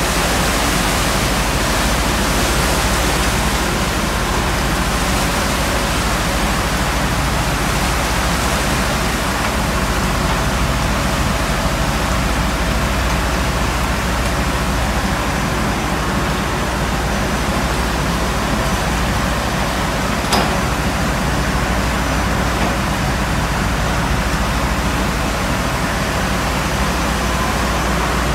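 Seawater surging and rushing across a tanker's steel deck as waves break over the rail, a steady dense rushing noise with a low rumble beneath it. A single short knock about twenty seconds in.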